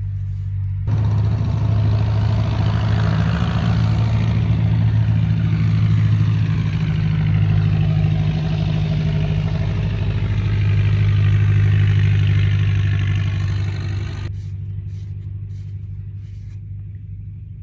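Farm tractor engine running as it drives past, a steady low drone that grows louder, peaks about twelve seconds in, then fades away.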